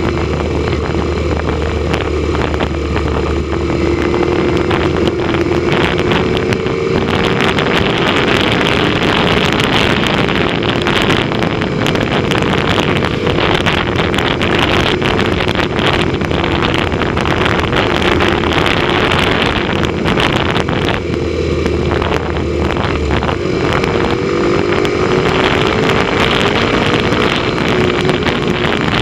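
Motorcycle engine running at a steady cruising speed, its note wavering slightly in pitch, with wind rushing over the microphone.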